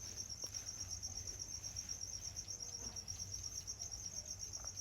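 A cricket trilling steadily: one high, rapidly pulsing note that runs on without a break. Two faint clicks come through, one near the start and one near the end.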